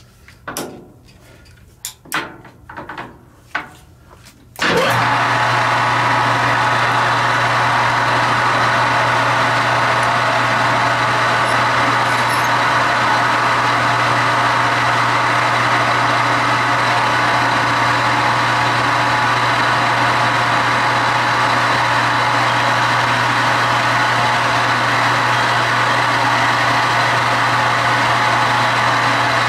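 A few separate knocks and clicks, then about five seconds in a metalworking machine tool starts up abruptly and runs loud and steady.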